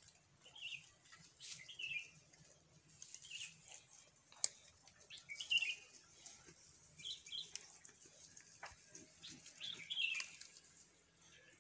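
Small birds giving short faint chirps, one every second or two, with scattered sharp clicks and rustles of goat kids browsing through dry grass stems.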